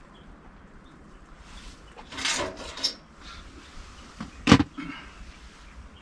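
A short rustle about two seconds in, then a single sharp knock about four and a half seconds in, from a seated person moving and handling a metal mug.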